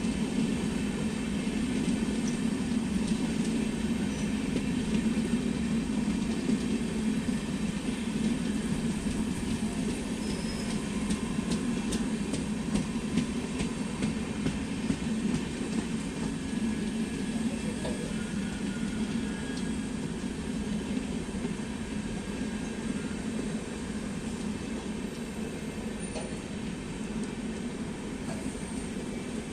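A passenger train rolling past on the rails: a steady rumble of wheels and coaches that slowly grows quieter.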